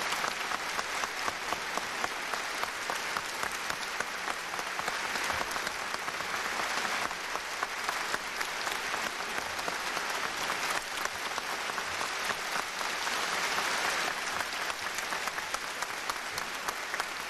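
Large hall audience applauding, many hands clapping at once in a dense, steady ovation.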